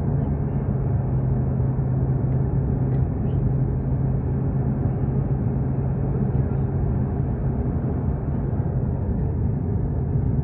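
Steady road and engine noise from inside a moving car's cabin: a constant rumble with a steady low hum under it.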